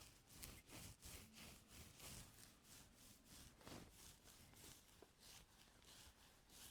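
Faint, quick scratching strokes of an ear-cleaning tool working in a person's ear, about three a second.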